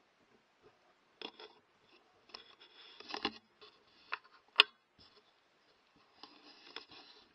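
Handling noises from a rifle and its thermal scope: scattered small clicks and rustles, with one sharp, much louder click a little past halfway.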